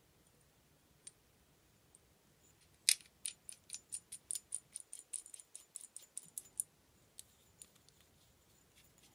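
Small brass gas valve and its knurled metal knob clicking against each other in the fingers as they are fitted together. A sharp click about three seconds in is followed by a quick, irregular run of light metallic clicks for some four seconds, then a few scattered ticks.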